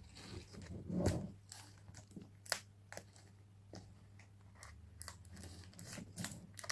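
Faint rustling and crinkling of a toilet-paper-like wrap being unrolled off a toy package, with a slightly louder rustle about a second in and scattered small clicks and taps after.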